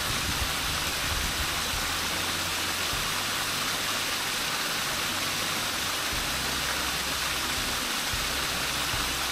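Small waterfall splashing steadily: a constant, even rush of falling water.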